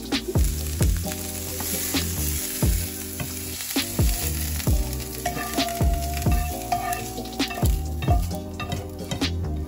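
Shredded cabbage sizzling in a nonstick frying pan while a spatula stirs and scrapes it out onto a plate. Background jazz-funk music with a steady beat plays under it.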